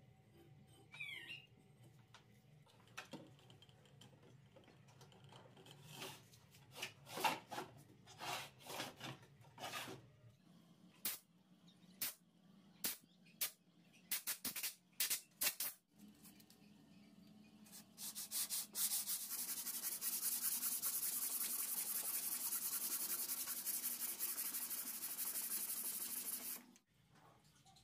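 Hand sanding plywood with a sanding block: a steady rasping rub lasting about eight seconds in the second half, stopping suddenly near the end. Before it, scattered clicks and knocks of tools and parts being handled on the bench.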